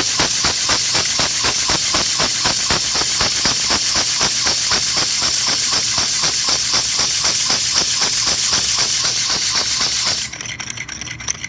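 3D-printed compressed air engine running fast: a rapid, even rhythm of exhaust puffs over a steady air hiss. About ten seconds in the hiss stops suddenly and the puffing goes on more faintly.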